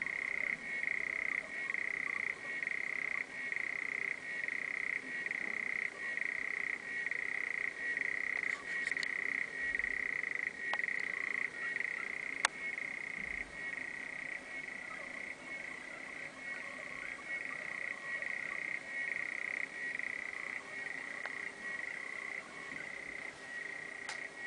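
Male African clawed frog (Xenopus laevis) giving its advertisement call: a fast clicking trill at one steady pitch that swells and dips in a repeating cycle of just under one a second, running on without a break. A couple of sharp clicks sound around the middle.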